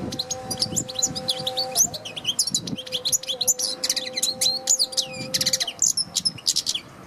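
European goldfinch singing a fast, continuous twittering song of rapid chirps and trills, over a faint steady hum.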